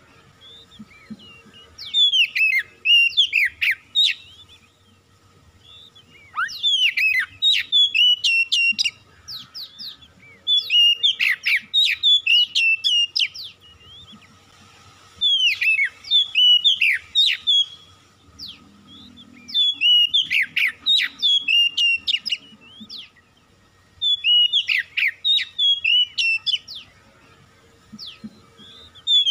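Oriental magpie-robin (kacer) singing: about seven bouts of loud, varied whistles and fast trills, each lasting two to three seconds, with short pauses between them.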